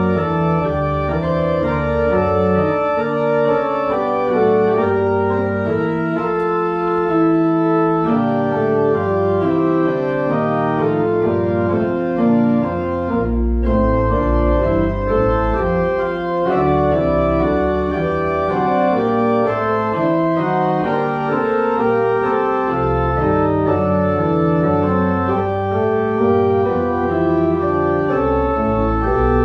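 Church pipe organ playing sustained full chords that change every second or so over bass notes from the pedals, with a very deep pedal note about halfway through.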